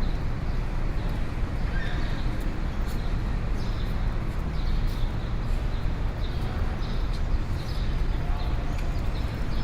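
Busy city street at night: a steady low rumble of traffic and crowd, with scattered short, high clicks and chirps over it.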